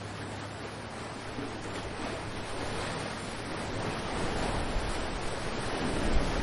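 Ocean surf washing in, an even rushing that swells louder toward the end, with wind buffeting the microphone in low gusts.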